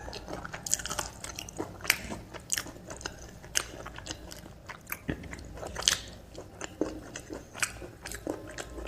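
A person eating close to the microphone: chewing soft food with wet mouth clicks and lip smacks coming irregularly, several a second.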